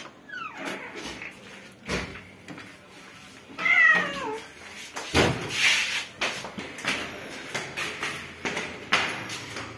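Ginger stray mother cat meowing once, a single call falling in pitch, amid scattered knocks and a short rustling burst just after it.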